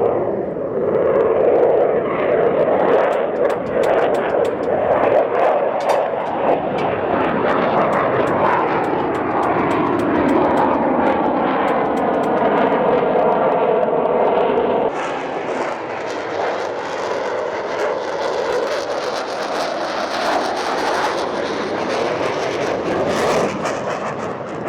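A loud fixed-wing aircraft flying over, its engine noise filling the air and sweeping in pitch as it passes.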